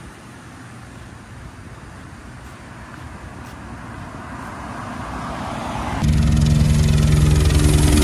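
A pesticide-spraying helicopter flying low and close overhead: loud, steady rapid rotor chop over a low engine drone. It comes in sharply about six seconds in, after a rushing noise that grows steadily louder.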